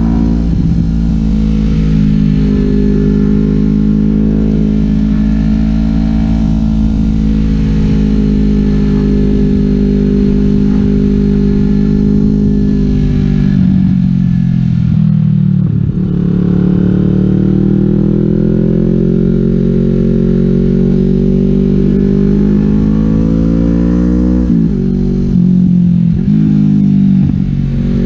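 Kawasaki Vulcan S 650 cc parallel-twin engine running through an aftermarket Delkevic 550 mm slash exhaust, heard from the rider's seat while riding. The engine holds a steady note while cruising. About 14 seconds in its pitch drops, then climbs again. Near the end come several quick dips and rises in pitch as the throttle is rolled off and on.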